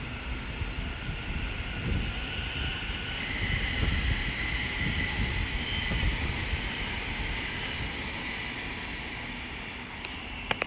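Thameslink Class 700 electric multiple unit pulling away from the platform, its traction whine swelling over a few seconds and then fading as it leaves, with gusty wind rumble on the microphone. A few sharp clicks near the end.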